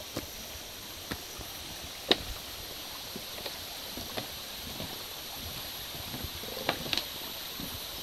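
Footsteps of a person walking, sharp steps about once a second, over the steady rush of a shallow stream.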